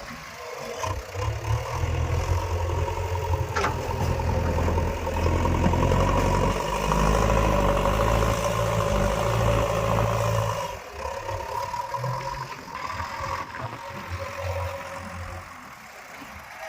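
Diesel engine of a JCB 3DX backhoe loader working under load during digging and loading. It is louder for most of the first ten seconds and then drops back toward idle. There is a single sharp clank about three and a half seconds in.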